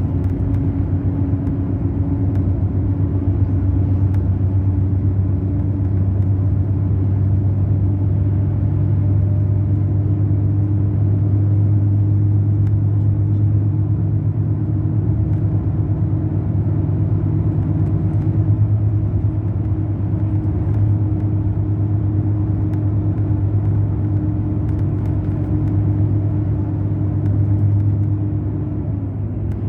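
Mercedes-Benz O500 RSD bus's BlueTec5 diesel engine running steadily under way, a deep drone whose pitch creeps slowly upward and then drops away near the end as the engine eases off.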